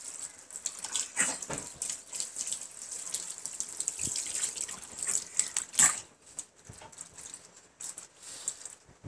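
Water from a garden hose spattering and splashing on a hard floor while a toddler's hands play in it, irregular and uneven, with one louder burst about two-thirds of the way through.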